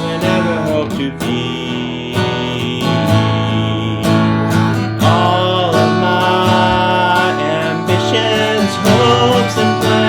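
Acoustic guitar strummed steadily, accompanying a worship song.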